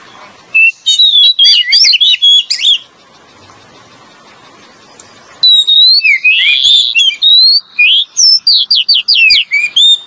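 Oriental magpie-robin (kacer) song, as played for a lure call: loud, bright whistled phrases and quick gliding chirps. The song breaks off for about two and a half seconds in the middle, then comes back as a dense run of rapid repeated notes.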